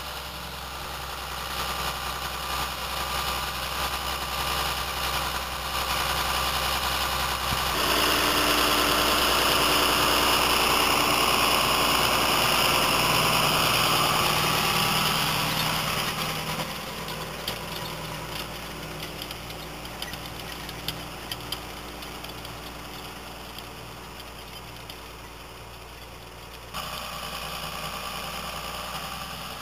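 John Deere tractor's diesel engine running steadily under load as it pulls a beet seed drill, loudest about a quarter of the way in as the tractor passes close by, then dropping back to a quieter, more distant hum.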